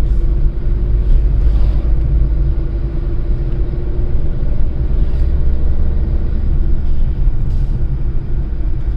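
Steady, loud low rumble with a faint hum holding one pitch throughout.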